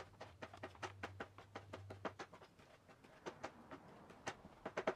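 Chef's knife chopping fresh cilantro on a cutting board: a faint run of quick, light taps, about three a second, irregular.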